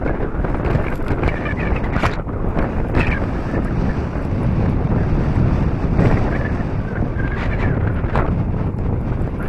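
Wind buffeting the microphone of a backpack-mounted camera on a moving chairlift, a loud steady rumble, with scattered clicks and rustles.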